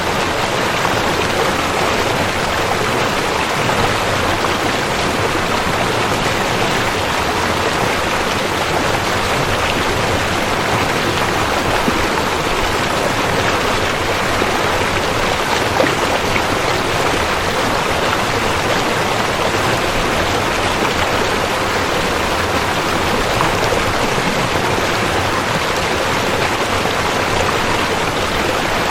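River water rushing and babbling in a steady, continuous flow.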